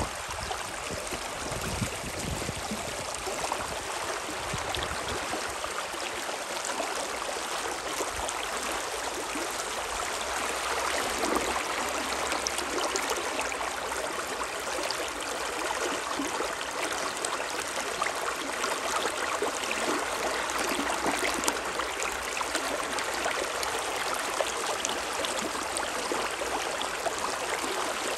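The Spree river rushing: a steady, even water noise. A little wind rumbles on the microphone in the first couple of seconds.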